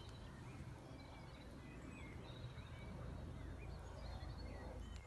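Quiet open-air ambience: faint birds chirping here and there over a low steady rumble.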